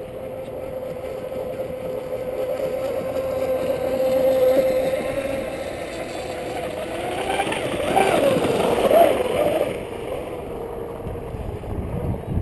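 Radio-controlled speedboat's brushless electric motor whining at high speed across the water at a steady pitch, growing louder to about four seconds in. Around eight to nine seconds in it peaks loudest, its pitch wavering up and down as the boat turns and passes.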